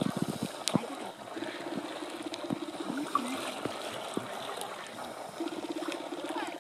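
Shallow sea water lapping and trickling close to the microphone, with a few sharp splashes about the start. A low buzzing hum comes in for a second or two early on and again from about two-thirds of the way through.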